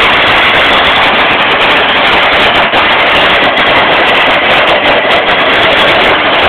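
Loud, steady rolling rumble and rattle of a bicycle and a wheelbarrow's wheel running over tarmac.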